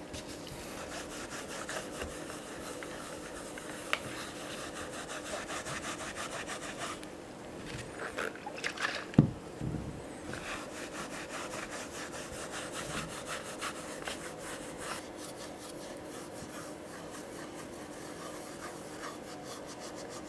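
Dye applicator pad rubbing and scrubbing leather dye into a leather holster in steady strokes, with a few louder handling knocks about eight to nine seconds in.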